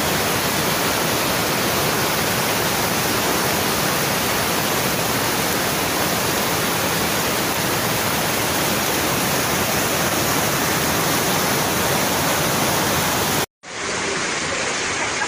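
Heavy rushing water, a steady dense hiss with no let-up, from floodwater or torrential rain. Near the end it cuts off abruptly, and a duller, more muffled rush of the same kind follows.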